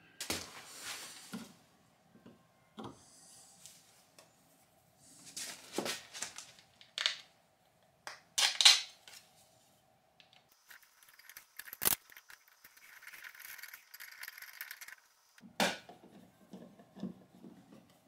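Scattered clicks, taps and knocks of objects being handled, with a stretch of rustling or scraping starting about ten seconds in and a sharp click near the middle of that stretch.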